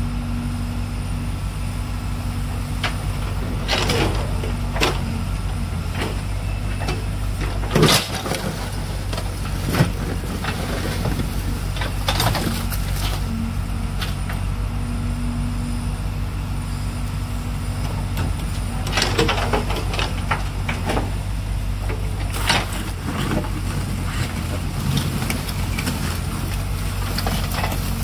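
Backhoe loader's diesel engine running steadily, with scattered sharp clanks and knocks from the loading of rubbish into a dump truck; the loudest clanks come about eight and ten seconds in.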